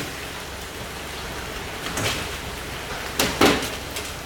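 Hailstorm heard from inside a car: a steady hiss of falling hail and rain, with a few sharp knocks of hailstones striking, the loudest around three and a half seconds in.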